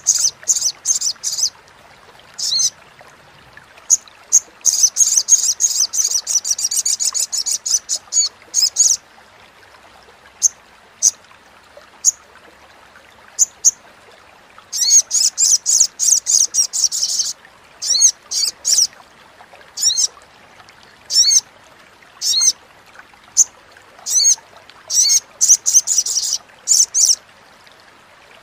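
Sunbird (sogok ontong) chattering: rapid runs of sharp, high chips, with two long dense runs and short clusters and single chips between them.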